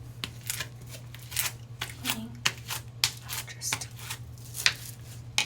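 Crunchy snow-fizz-textured slime being squished and worked by hand, giving irregular crackles and pops several times a second.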